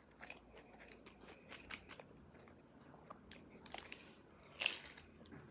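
Close-up mouth sounds of a person chewing food, likely banh mi, with faint wet clicks and small crunches and one brief louder crunch about four and a half seconds in.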